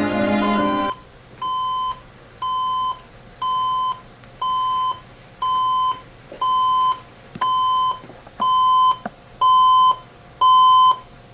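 Music stops about a second in, and an electronic alarm clock starts beeping. It gives one steady high beep about every second, each about half a second long, and the beeps grow slightly louder.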